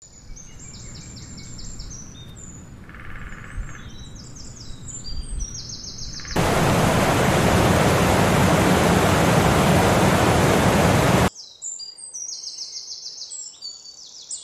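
Songbirds singing in repeated quick high phrases over a faint background rush. About six seconds in, the loud rushing of water tumbling over a rocky cascade cuts in abruptly. It cuts off just as suddenly about five seconds later, leaving the birdsong again.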